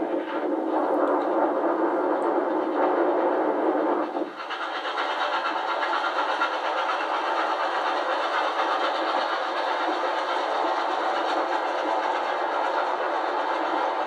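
Steam trains running at speed: the steady rush and rattle of a moving train with a Victorian Railways R class steam locomotive running alongside on the parallel track. The sound is thin and without bass, as played back from old videotape through a television speaker, and changes character about four seconds in.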